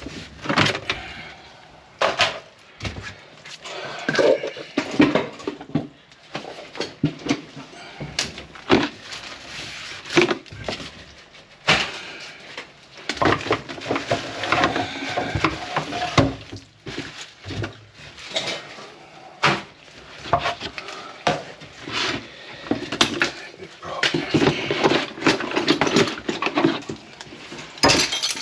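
Irregular knocks and clatter of objects being handled, with low voices now and then.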